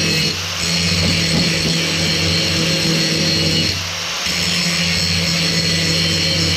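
Handheld electric angle grinder running at full speed and grinding into steel. It lets up twice for a moment, about half a second in and just under four seconds in, then bites in again.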